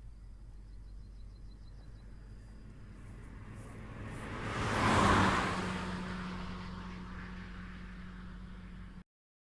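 A single vehicle passing on a highway: the tyre and engine noise builds to a peak about five seconds in, then fades, leaving a low hum. The sound cuts off abruptly about nine seconds in.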